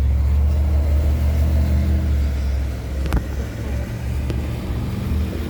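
A car's engine running steadily, a low drone with a sharp click about three seconds in.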